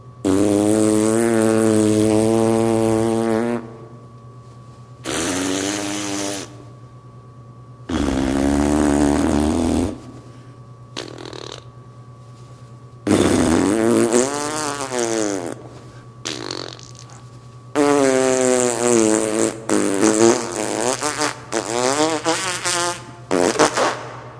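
A long run of loud fart noises where a burp had been announced: about eight blasts, the longest over three seconds, some swooping up and down in pitch, turning to quicker, choppier ones near the end.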